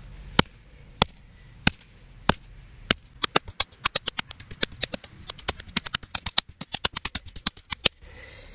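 Hammer blows on an old smartphone lying on grass: five evenly spaced strikes, then a fast flurry of several blows a second that stops about eight seconds in, cracking the screen apart.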